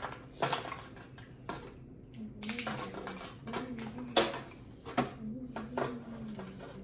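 Crab legs being cracked and picked apart by hand over foil pans: a series of sharp cracks and crinkles about a second apart. A low wavering hum runs underneath through the second half.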